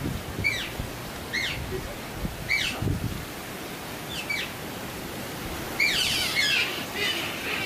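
Otter giving short, high, bird-like chirps about once a second, then a quicker run of overlapping chirps about six seconds in. These are the excited calls of otters restless just before feeding.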